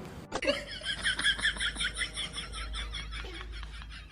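A rapid series of short, high chirps, about six or seven a second, starting just after a cut and fading toward the end.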